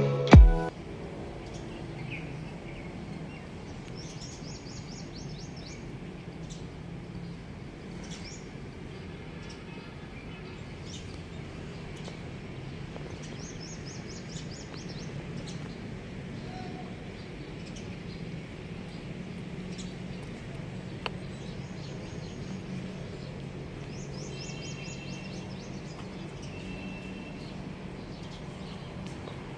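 Outdoor ambience of birds calling: several short runs of rapid, high-pitched chirps, over a steady low hum.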